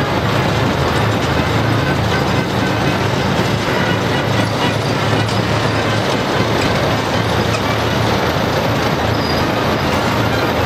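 Column of heavy military vehicles driving past, their engines running with a steady low hum under a dense wash of mechanical noise.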